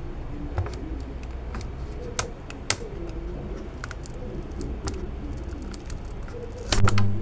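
Scattered light clicks and taps of hands and tools on a laptop motherboard, with a louder knock near the end.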